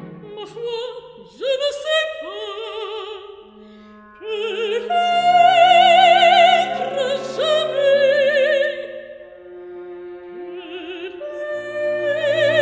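Operatic singing: a high voice holding long notes with strong vibrato over sustained orchestral accompaniment, swelling loudest around the middle.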